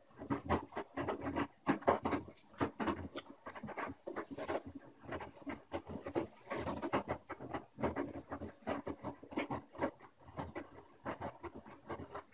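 Washing machine drum turning with wet laundry, giving a busy, irregular run of soft thuds and sloshes several times a second; it stops right at the end as the cycle finishes.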